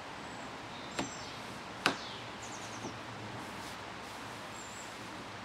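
Two sharp plastic knocks, a little under a second apart, the second louder, followed by a faint tap, as a plastic upright is slotted into the groove of a Keter High Store wall panel. Faint bird chirps over steady outdoor background noise.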